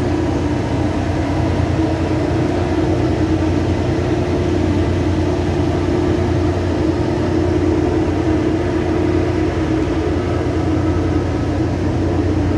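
Land drilling rig machinery running with a loud, steady drone and a constant hum.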